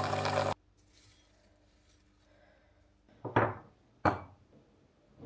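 A coffee machine runs with a steady hum and cuts off about half a second in. Then come two sharp clinks of crockery, a little under a second apart, and a softer one near the end.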